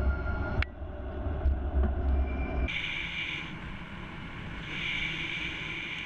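Wind rumbling on an action camera's microphone while an e-bike is ridden along a road, with the sound shifting abruptly at cuts between camera angles. In the second half the rumble is lighter and a higher-pitched hiss swells twice.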